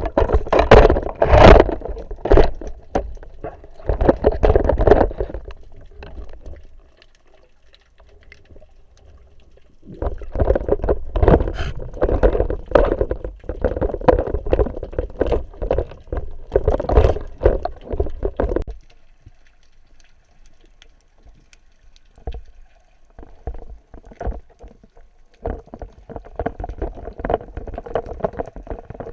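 Water sloshing and gurgling against a waterproofed action camera, heard muffled through its housing during a freedive. It comes in two long, loud churning stretches, about the first six seconds and again from about ten to eighteen seconds, with quieter bubbling between and after them.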